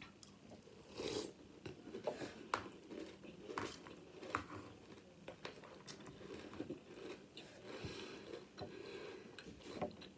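Close-up chewing of crunchy Sour Patch Kids cereal: faint, irregular crunches, a few louder bites early on.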